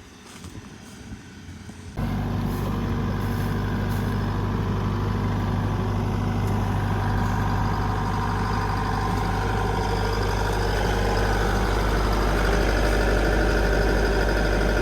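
Rice combine harvester running: its engine and machinery come in loud and abruptly about two seconds in, then run steadily with a deep hum.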